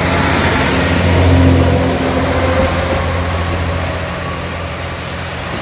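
JR Kyushu KiHa 40-series diesel railcar running under power as it pulls away along the platform. Its low engine hum and the wheel and rail noise are loudest about a second and a half in, then fade steadily as the train moves off.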